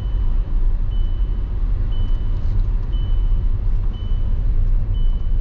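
Low car driving slowly on a wet, flooded gravel road, heard inside the cabin: a steady low rumble of engine and tyres on the rough surface. A short high beep repeats about once a second throughout.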